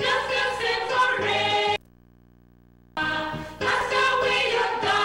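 Mixed choir singing a gospel hymn. A little under two seconds in, the sound cuts out abruptly for about a second, leaving only a faint low hum, then the singing returns.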